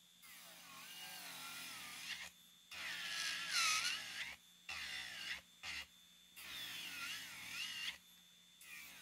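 Melody Susie SR3-Jade rechargeable nail drill grinding down an artificial nail in several short passes, its high whine dipping and rising in pitch as the bit is pressed on and eased off. The nail is being thinned out ahead of a soak-off.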